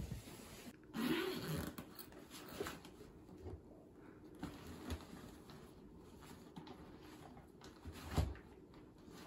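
Handling noise of a handbag being packed: rustling and scraping, light knocks as a travel mug goes into the bag, and one heavier thump about eight seconds in.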